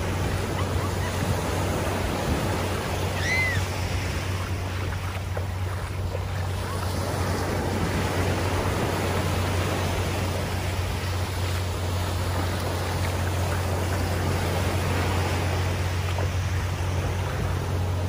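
Small surf breaking and washing up a sandy beach, a steady unbroken rush of water.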